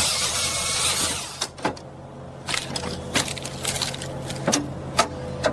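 Firewood processor splitting logs: a loud rush of noise in the first second, then a string of sharp cracks of splitting wood over the machine's steady engine hum.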